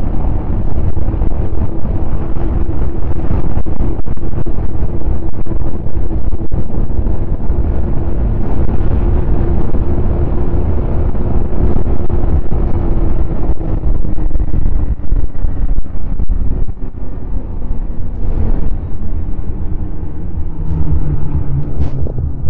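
Snowmobile engine running steadily at speed under heavy wind rumble on the microphone; its note sinks in pitch about two-thirds of the way through as the sled slows.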